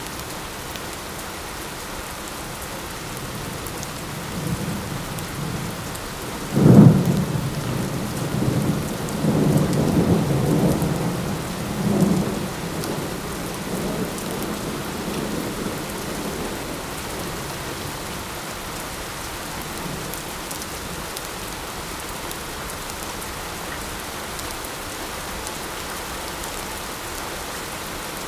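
Steady light rain falling. About seven seconds in, a sharp clap of thunder breaks out and rolls on in low rumbles for about six seconds before fading back under the rain.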